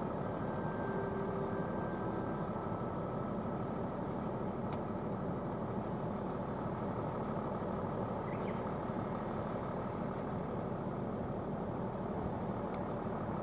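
Heavy truck engine running steadily with a low, even rumble. It comes from the tractor unit hauling a subway car on a low-loader trailer.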